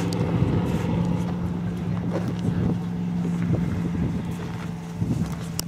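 A steady low motor hum, with a few faint knocks over it.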